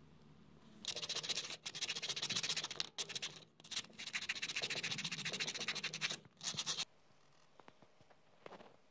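Sandpaper strip pulled back and forth around a wooden tool handle, a rasping scrape in several runs with short breaks, stopping about seven seconds in.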